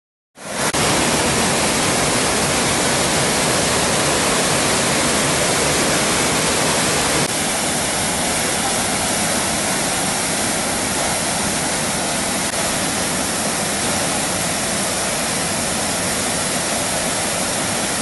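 Waterfall water pouring over and between large river boulders: a steady, dense rush of falling and churning water. It steps slightly quieter about seven seconds in.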